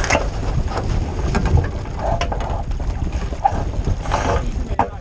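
49er skiff under sail through a tack: steady wind buffeting the microphone and water running along the hull, with scattered knocks and clicks as the crew cross the deck and handle the ropes.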